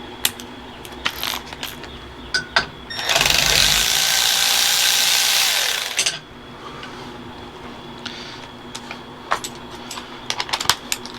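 A handheld power tool runs in one steady burst of about three seconds, backing out a bolt from the steering wheel hub. Scattered light clicks and clinks of tools and parts come before and after it.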